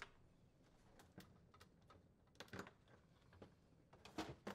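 Faint plastic clicks and taps as wire harness connectors are unplugged from a refrigerator cooling duct: a few scattered clicks, with the sharpest pair near the end.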